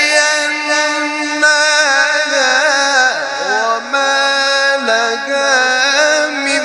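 Male Quran reciter's voice in melodic tajweed recitation, holding long, ornamented notes with no break, and swooping down in pitch and back up about three seconds in.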